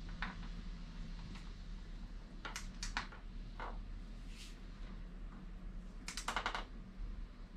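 Scattered sharp metallic clicks and taps from hand work on a mountain bike's crank and drivetrain, with a quick run of ratcheting clicks about six seconds in.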